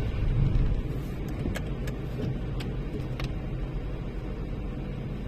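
Car driving, a steady low rumble of engine and road noise, with a few light clicks in the first half.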